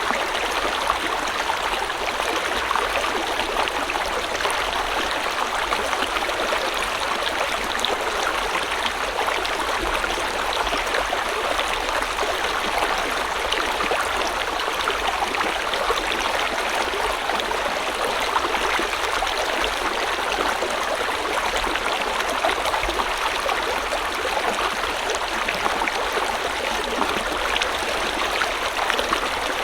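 A river or stream flowing steadily, with a constant rushing and gurgling of water over rocks.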